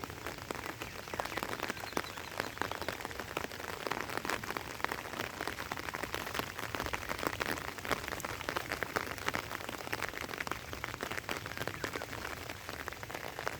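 Steady rain falling, a dense patter of drop ticks over a constant hiss.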